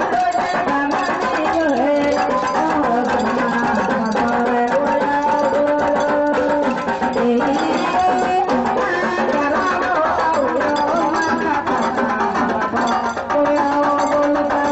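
Live festival music with drumming, its melody of held notes stepping and gliding in pitch throughout.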